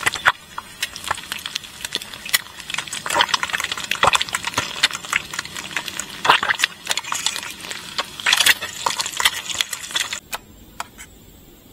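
Rapid, irregular clicks and scrapes that stop abruptly about ten seconds in.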